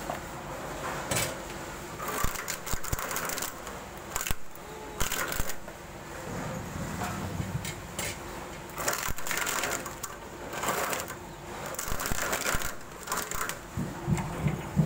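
Coconut shell-separating machine running with a steady motor hum, grinding and crunching in repeated bursts every second or two as coconuts are worked through it.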